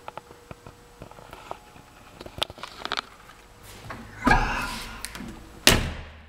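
The fiberglass-bodied door of a 1965 Corvette Sting Ray being swung shut: a heavy thunk with a ringing tail about four seconds in, then a sharper slam near the end as the door closes, after a few faint clicks of handling.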